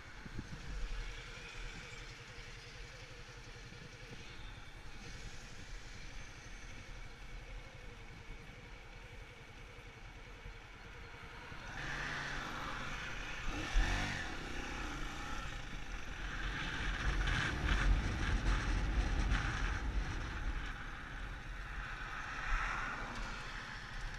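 Road vehicle driving: steady engine and road noise that grows louder about halfway through, with a brief sharp knock soon after.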